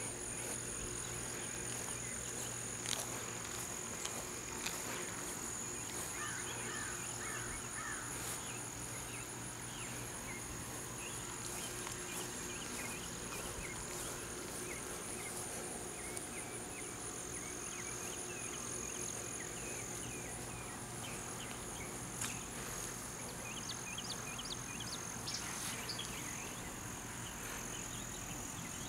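A steady chorus of insects: two high, continuous trills, one of them faintly pulsing. Scattered short bird chirps and a few brief clicks come through it.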